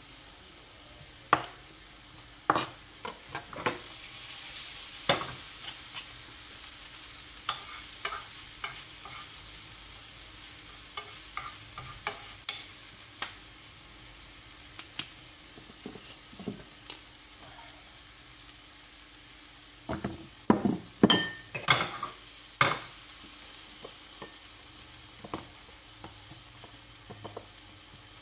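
Meat sizzling in a frying pan while a metal spoon stirs it, clicking and scraping against the pan, with a quick run of knocks about three quarters of the way through.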